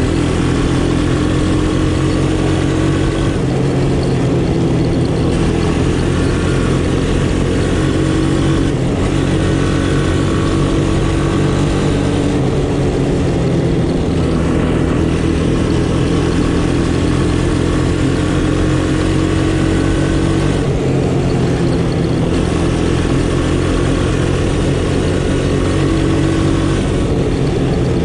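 Honda ATC 200M three-wheeler's single-cylinder four-stroke engine running under way, its pitch climbing slowly and dropping back several times as the throttle and speed change.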